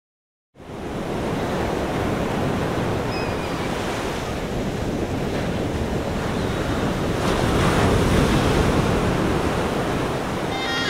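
Sea surf: small waves breaking and washing up on a sandy beach, a steady rushing that comes in about half a second in and grows louder around seven to eight seconds in.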